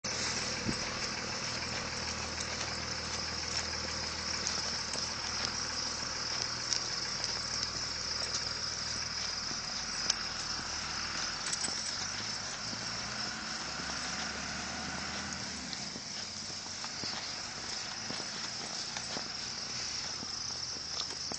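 Outdoor ambience: a steady high chirring of insects such as crickets over a low steady hum, with a few faint clicks.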